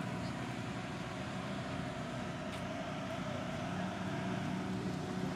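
Off-road desert race car's engine idling steadily, a constant even pitch.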